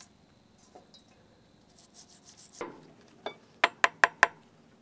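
A vintage Barient 22 winch being worked on by hand: after a quiet stretch, a quick run of five or six sharp metallic clicks and clinks about three seconds in.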